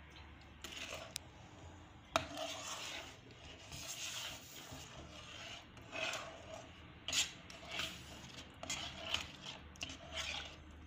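Perforated steel spatula stirring a wet semolina halwa mixture in a pan, scraping over the pan's bottom in a run of irregular strokes, with one sharp knock against the pan about two seconds in.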